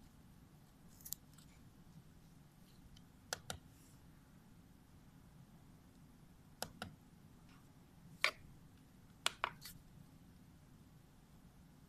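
Metal dissecting instruments clicking as they are handled: about eight short, sharp clicks, several in quick pairs, over a faint low hum.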